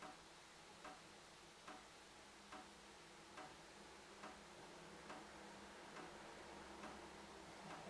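Water dripping from a tap, one faint drop about every 0.85 seconds in a steady, even rhythm.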